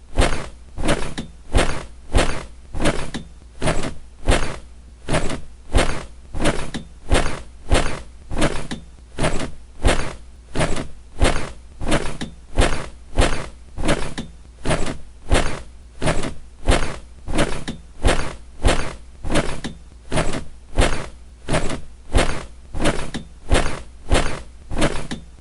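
A squeaky bed squeaking over and over in a steady, even rhythm, about three squeaks every two seconds, over a low steady hum.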